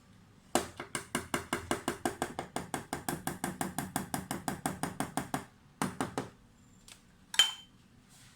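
Cake batter beaten by hand in a bowl: quick, even strokes of the utensil against the bowl, about six a second for about five seconds, then a few more strokes and one ringing clink near the end, as of the utensil knocked on the bowl's rim.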